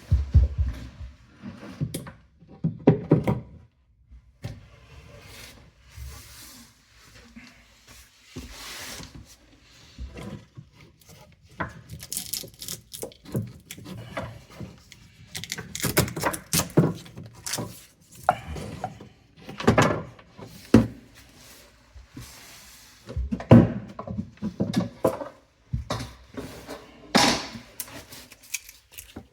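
Irregular knocks, thuds and scraping of objects being handled and set down, with a cluster of louder knocks in the first few seconds and again about three-quarters of the way through.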